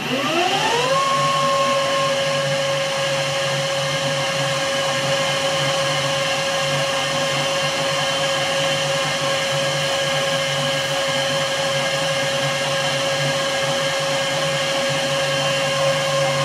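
Metal lathe starting up: its motor and spindle whine rises over about the first second, then holds at one steady pitch as the lathe runs at speed while a high-speed steel tool turns a stainless and epoxy-resin workpiece.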